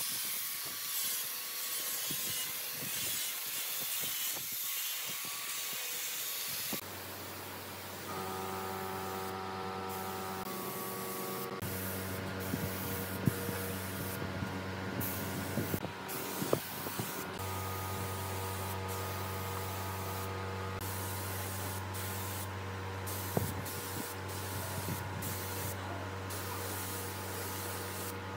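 For the first few seconds an angle grinder with a sanding disc runs, sanding the wooden chair frame. The sound then cuts to a spray gun hissing in repeated bursts as finish is sprayed on, with brief breaks where the trigger is let go, over a steady low hum.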